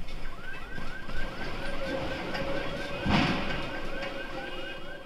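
Car alarm sounding a fast repeating rising chirp, about five a second, set off by the earthquake's shaking. A loud crash about three seconds in as the scooter ahead topples onto the road.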